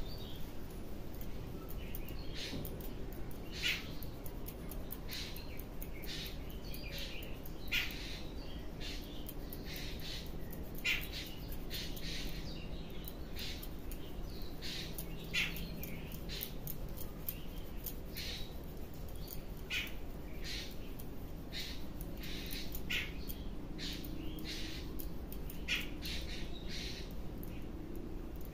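Birds giving short, harsh squawking calls over and over, several a second at irregular intervals, with a few louder calls standing out.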